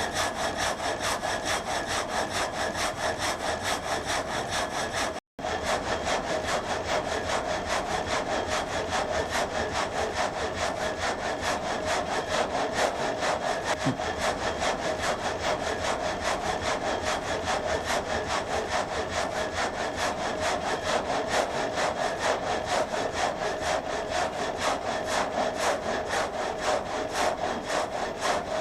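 Water-driven vertical frame saw cutting through a log: the reciprocating saw blades rasp through the wood in a fast, even rhythm of strokes. The audio drops out briefly about five seconds in.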